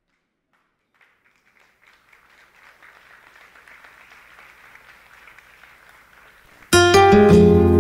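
Faint audience applause that builds over several seconds. Near the end, loud recorded music starts abruptly with a plucked-string introduction.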